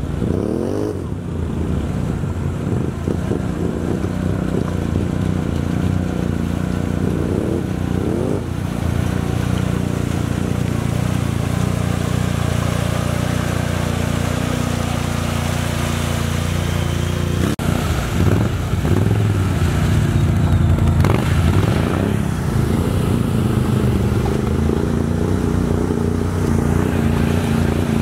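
Can-Am Outlander XMR ATV's V-twin engine running under load, revved up in short rises near the start and again about a third of the way in, with a steady rumble between. A sharp knock about two-thirds of the way through.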